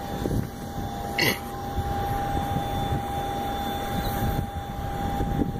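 Steady engine whine from an aircraft on the airfield under a rumble of wind on the microphone, with one sharp click about a second in.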